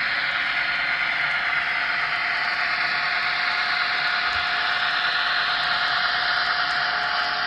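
N scale model freight train running by: a steady, tinny hiss from the sound-equipped diesel locomotive's small onboard speaker and the wheels rolling on the track, with a faint steady hum underneath.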